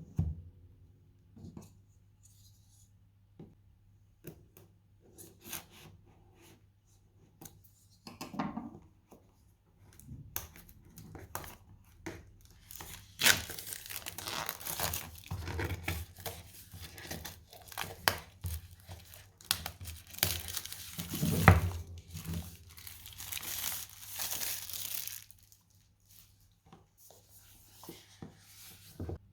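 Packaging of a smartphone box being torn and crinkled by hand. Scattered light clicks and handling noises come first, then longer stretches of tearing and crinkling about halfway through and again later, with a couple of dull thumps of the box being handled.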